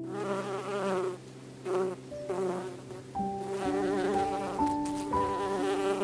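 Honeybee buzzing in spells: a longer spell at first, two short bursts around two seconds in, then more continuously from about three seconds. Soft sustained piano notes sound underneath.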